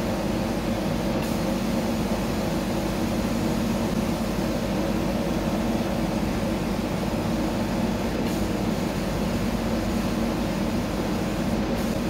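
Homemade CO2 laser cutter running a job on cast acrylic: a steady hum and rush of air from the machine's exhaust blower and chiller, unchanging throughout.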